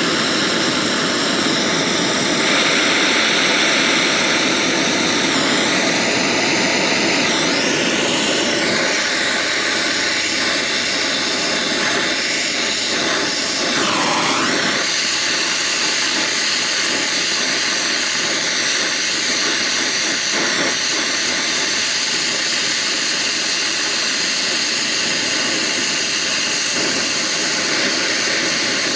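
Oxy-acetylene torch flame burning with a loud, steady hiss while it heats a copper refrigerant line joint at a heat pump's service valve for brazing. The hiss briefly swoops in tone a few times as the flame is moved around the joint.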